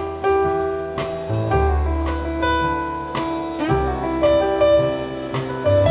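Live dance band playing a contra dance tune: Roland FP-7 digital piano chords over a low bass line, with drum strikes keeping a steady beat.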